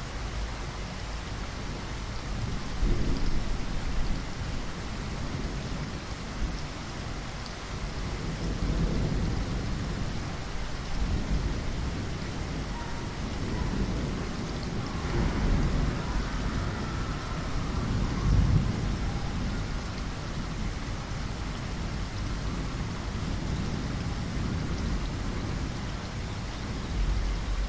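Steady rain falling, with low rolling rumbles of thunder that swell several times.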